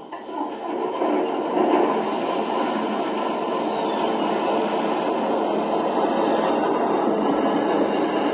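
LGB G-scale model Cargo Sprinter running on its track: a steady mechanical running noise from the motor and wheels, building up over the first second and then holding even.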